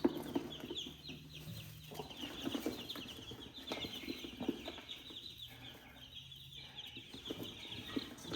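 A brood of baby chicks peeping steadily, many short, high, falling peeps overlapping, with a few soft knocks and rustles underneath.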